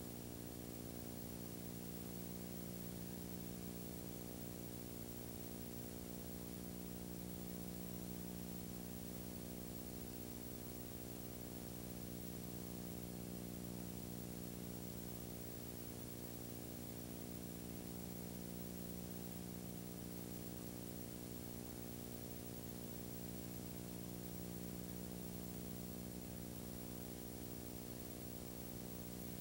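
Steady electrical hum, a stack of low unchanging tones, with a faint hiss above it. It is the noise of the recording chain, and no other sound is heard.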